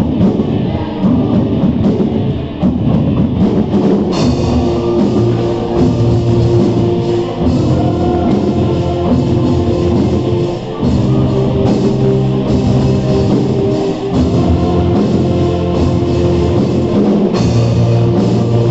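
Student band rehearsing live on drum kit, electric guitar and keyboard, playing a rock-style song with a steady beat.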